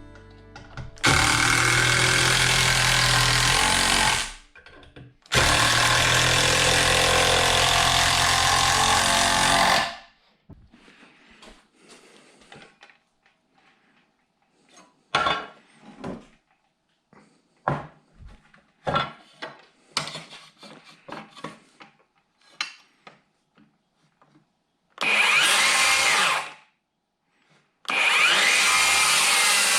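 A power tool runs in four bursts of a few seconds each, two long ones in the first ten seconds and two shorter ones near the end, with scattered knocks and clatter of handling in between.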